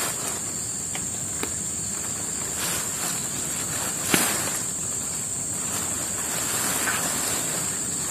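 Insects buzzing steadily at a high pitch, with small water splashes and handling noise as hands work a fishing net in a muddy stream; a sharper splash comes about four seconds in.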